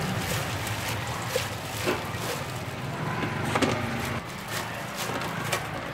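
Gloved hand tossing shredded rice-paper salad in a stainless steel bowl, with a few light clicks and rustles over a steady low background hum.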